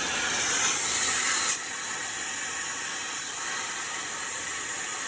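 CNC plasma cutting torch hissing steadily as it cuts 13-gauge sheet steel, louder for about the first second and a half and then settling a little quieter.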